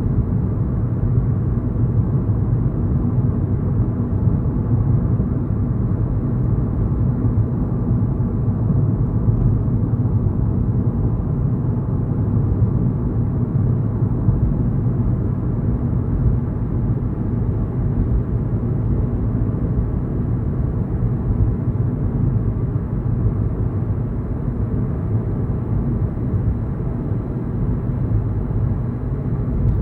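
A car driving at a steady pace: a continuous low rumble of road and engine noise that stays even throughout.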